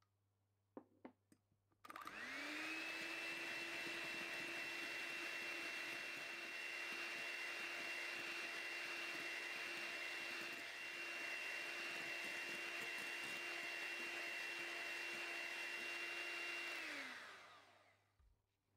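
Electric hand mixer beating egg whites and sugar into meringue in a glass bowl. It starts after a few light clicks about two seconds in, spins up to a steady motor whine, runs evenly, and winds down near the end as the meringue reaches soft peaks.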